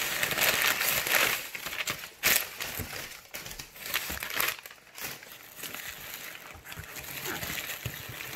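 Crumpled newspaper packing paper crinkling and rustling as hands dig through it and pull it out of a cardboard box. Busiest in the first couple of seconds, with one sharp crackle a little after two seconds in.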